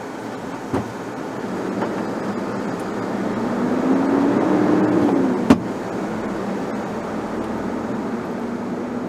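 Car engine and road noise heard from inside the cabin while driving. The engine note rises for a couple of seconds as the car speeds up, then drops back just past the middle. There is a sharp click right after the drop and a fainter click about a second in.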